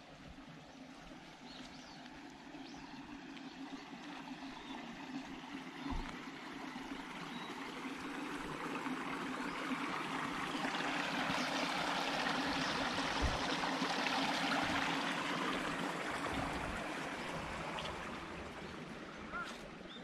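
Running water, a small stream or pond outflow, grows louder over about ten seconds and then fades again. A duck starts to quack right at the end.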